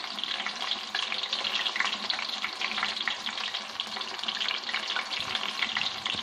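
Batter-coated fish pieces deep-frying in hot oil in a kadhai: a steady sizzle with dense, fine crackling, as the second side of the fish cooks after being turned.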